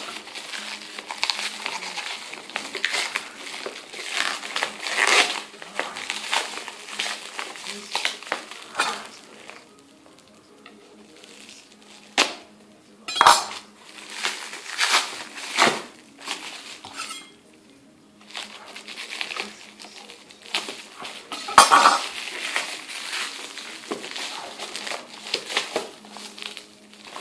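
Laptop box and packaging being handled and unpacked: rustling and crinkling with scattered clicks and clatters, several sharper knocks in the second half and a couple of quieter pauses.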